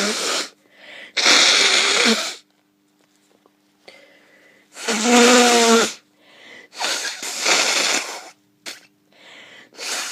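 A person with a head cold blowing their congested nose hard, about four blasts of a second each with quieter sniffs and breaths in between. The blast about five seconds in carries a pitched, honking tone.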